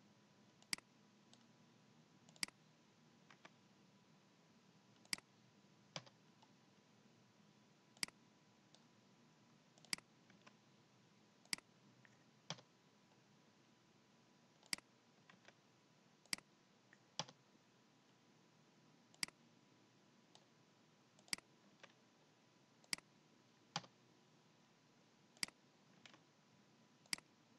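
Computer mouse clicks: about twenty single, sharp clicks at irregular spacing of one to three seconds, over a faint steady background hiss.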